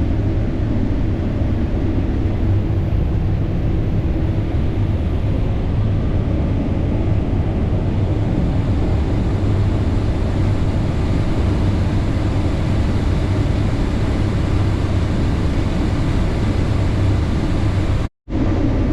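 Combine harvester running steadily: a constant low engine drone that cuts out abruptly for a moment near the end.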